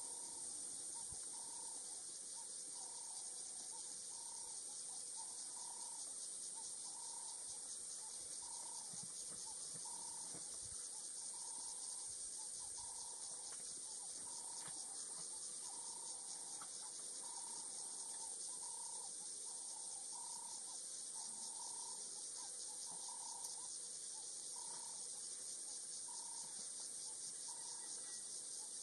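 Faint, steady high-pitched buzz of an insect chorus, with a short mid-pitched call repeated over and over about once a second.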